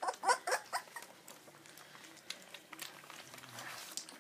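Welsh Springer Spaniel puppies at a tray of formula milk: a few short squeaky puppy yips in the first second, then soft, irregular small wet clicks of lapping.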